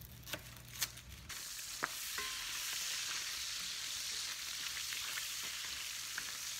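Chopped bacon sizzling steadily in a cast iron skillet as it is stirred with a wooden spoon, with a few knocks of the spoon against the pan. The sizzle starts about a second in, after two sharp knife clicks as onions are peeled on a wooden cutting board.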